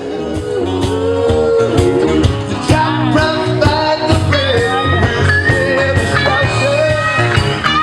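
A rock band playing with a male singer, guitar and drums keeping a steady beat.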